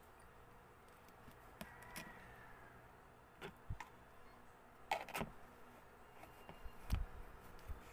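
A few scattered light knocks and clicks of drink glasses and a plastic container being handled on a table, over a faint room background; the loudest is a dull thump about seven seconds in.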